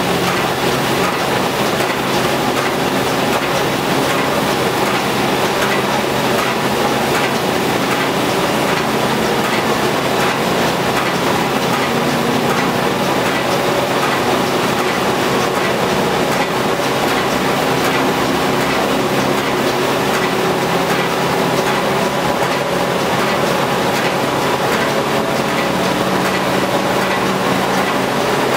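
1930s Osbyverken side planer (a barrel-stave planer) running free under its belt drive: a loud, steady, dense mechanical rattle and hum. The heavy cutter disc is still slowly gathering speed toward operating speed.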